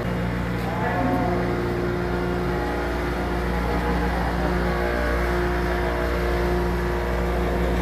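Electric motor-driven pump units humming steadily, with the hydraulic power pack and the mill's lubrication pumps at work; a higher steady tone comes in about three seconds in.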